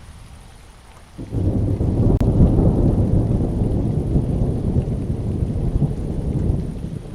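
Thunder in a rainstorm: a low rumble breaks in suddenly about a second in and rolls on, slowly easing, over steady rain.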